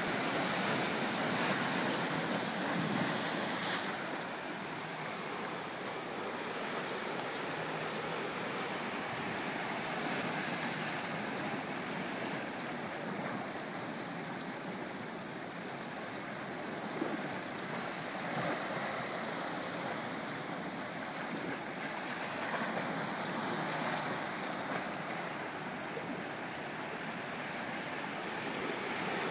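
Ocean surf washing over the rocks of a tide pool: a steady rush of water, a little louder for the first four seconds and then settling.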